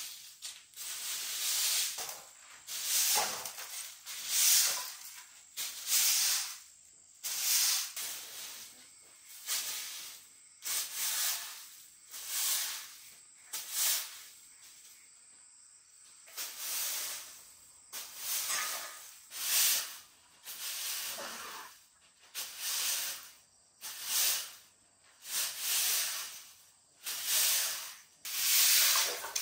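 Rhythmic swishing strokes, roughly one a second, each a short burst of hiss that rises and dies away, with a brief pause about halfway through.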